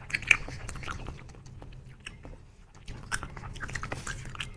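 Chewing soft yogurt jelly: a run of wet, irregular mouth clicks and smacks, the sharpest one just after the start.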